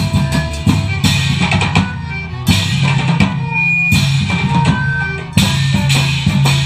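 Music with dense drumming over sustained low bass notes.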